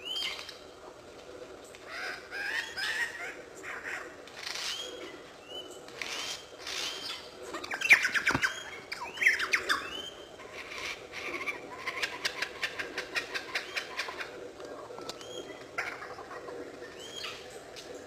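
Superb lyrebird singing, a string of varied calls mimicking other forest birds: repeated short hooked whistles, the loudest burst of calls about eight seconds in, and a fast run of short notes from about eleven to fourteen seconds.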